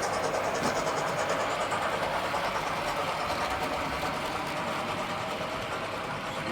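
Hornby R30225SS 'Black 5' OO-gauge model steam locomotive running steadily, its motor and wheels on the track mixed with the sound decoder's steam sounds.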